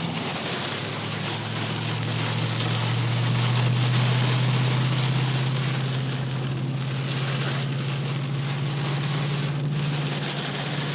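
Rain falling on a moving car, heard from inside, over the car's steady low engine and road hum, which swells slightly a few seconds in.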